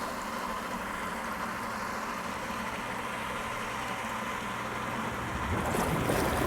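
Steady low hum of the spa's electric motor running. About five and a half seconds in, a broader rushing sound rises over it.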